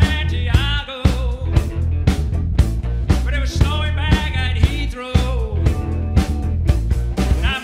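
Live rock band playing: a male lead vocal sung in phrases over electric guitars, bass guitar and a drum kit with a steady beat.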